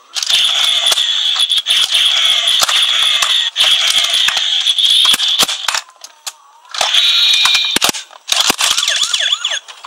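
Battery-powered transforming toy police car playing its electronic sound effects through a small speaker: a shrill high tone with sweeping sounds and rapid clicks. It plays in three bursts, breaking off about six seconds in and again near eight seconds.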